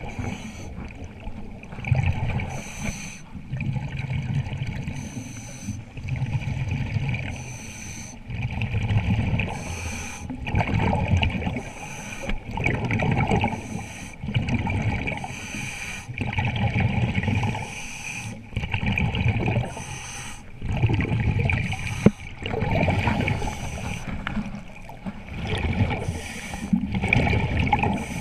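Scuba diver breathing through a regulator underwater: a hiss with each inhalation, then a gurgling rush of exhaled bubbles, in a steady cycle repeating every couple of seconds.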